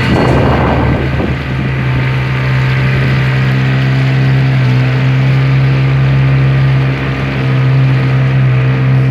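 An engine running at a steady speed, a constant low drone, with a brief rush of noise in the first second or so.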